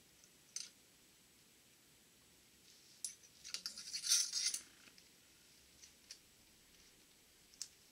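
Small metal clicks from a stiff snap ring being worked down the mainshaft of a Borg-Warner T-10 four-speed transmission toward the groove that retains its bearing. A few single clicks, with a denser run of clicking and scraping about three to four and a half seconds in.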